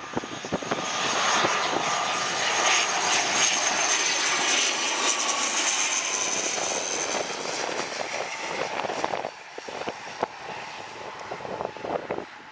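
ATR-type twin-turboprop airliner on final approach with its gear down, passing low overhead: engine and propeller drone with a high whine that slowly falls in pitch as it goes by. The sound drops away sharply after about nine seconds.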